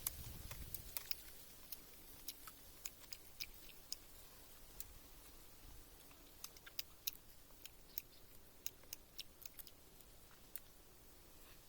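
Faint, irregular small clicks and ticks, scattered through the stretch with uneven gaps, a louder one about seven seconds in.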